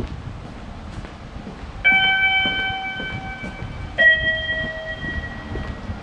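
A two-note chime rings in the station passage: a higher note about two seconds in, then a lower note about two seconds later, each ringing on for a second or more. Footsteps on the concrete walkway sound underneath.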